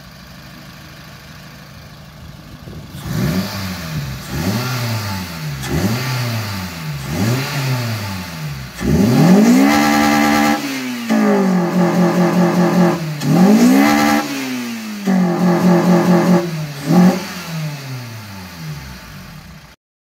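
Honda Civic Type R FN2's tuned, naturally aspirated four-cylinder engine idling, then free-revved with the car standing still. It gives four quick blips a few seconds in, then several long revs held high, and drops back to idle near the end.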